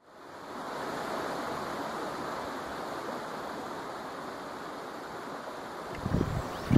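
Water running with a steady rush, fading in over the first second, joined near the end by a few low thumps.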